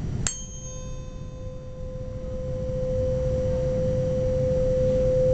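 A 512 Hz tuning fork struck once, with a brief bright clink of high overtones, then ringing as one steady pure tone. The tone grows louder over several seconds as the air column in the resonance tube below it approaches resonance while the water level is lowered.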